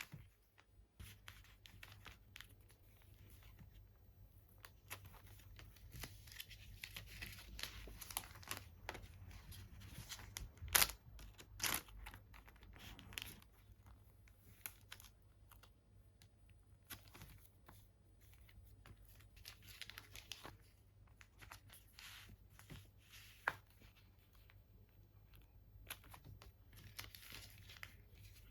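Thin plastic wrapping or sleeves being handled up close, rustling and crinkling, with scattered small taps and clicks. There are two sharper clicks about eleven and twelve seconds in.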